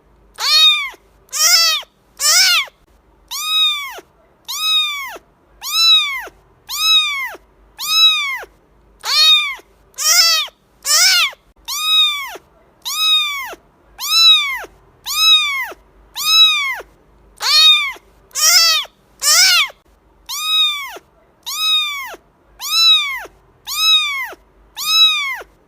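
Cat meowing over and over, about one meow a second, each call rising and then falling in pitch, a few louder than the others.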